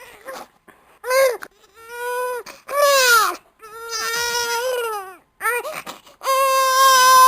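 Baby crying in a string of wails, each about half a second to a second and a half long, with short catching sobs between them. A long held cry starts at about six seconds.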